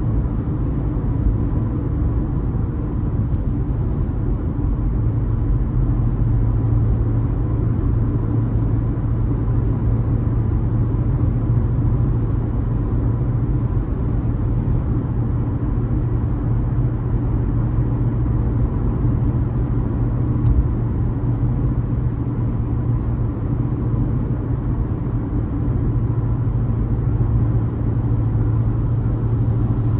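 A car being driven at steady speed: a constant low rumble of engine and tyre noise.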